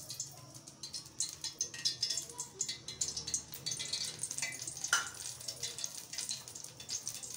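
Cooking oil poured into an aluminium pot on a gas burner, crackling and spitting with dense fine ticks as it meets the hot metal. One sharper click comes about five seconds in.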